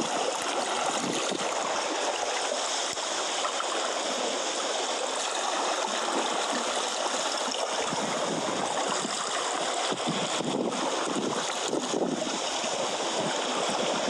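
Steady rushing and washing of seawater against shoreline rocks.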